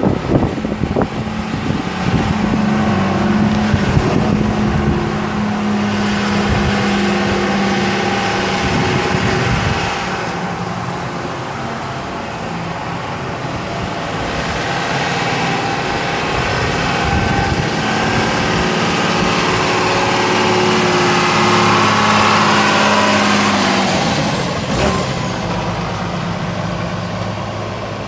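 John Deere 6068 six-cylinder diesel engine of a John Deere 6615 tractor running steadily.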